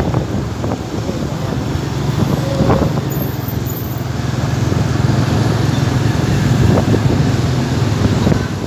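Road traffic close by: a steady low engine drone with road noise and a few short knocks.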